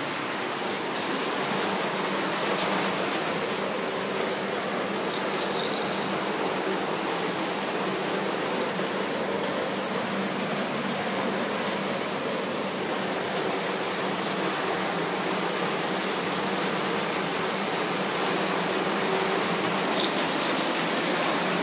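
Steady hiss with a faint low hum underneath, and a few faint clicks near the end.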